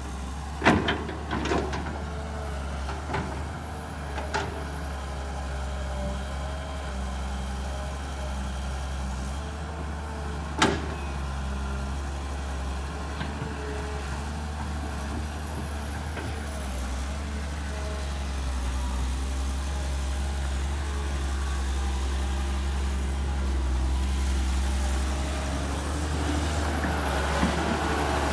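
Kobelco SK200 hydraulic excavator's diesel engine running steadily under load with a faint wavering whine. Sharp knocks come a couple of times in the first two seconds and once, loudest, about ten seconds in.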